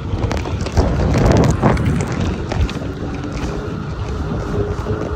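Wind buffeting the microphone of a jet ski under way, over the running engine and the water, louder for a moment about a second in.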